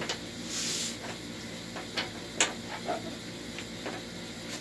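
Small fittings being rummaged through and handled on a workbench: scattered light clicks and knocks, the sharpest about two and a half seconds in, with a short rustle near the start.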